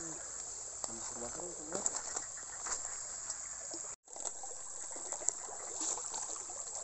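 Shallow forest stream trickling steadily with night insects, with a few small water clicks and splashes. Faint voices murmur in the first two seconds, and the sound cuts out briefly about four seconds in.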